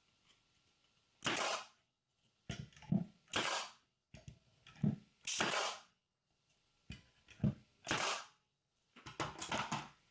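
Pin nailer driving pins into the wooden box panels: about five shots a second or two apart, each a sharp knock with a short hiss.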